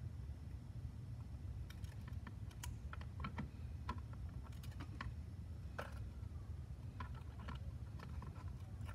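Irregular small clicks and taps from the plastic housing of a ToolKitRC M4Q charger and a small hand tool being worked as the case is fitted back together, over a steady low hum.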